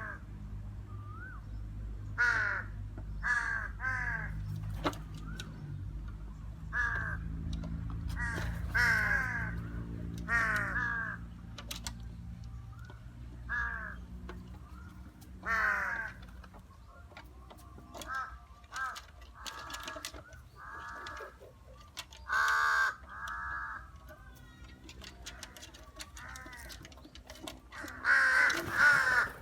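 Crows cawing again and again, short harsh calls often coming in runs of two or three, with several crows calling together near the end.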